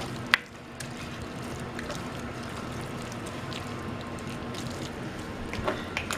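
A wooden spoon stirring a thick, wet mass of cooked greens and ground-nut sauce in an enamelled pot, making a steady wet squishing, with one sharp knock of the spoon against the pot about a third of a second in.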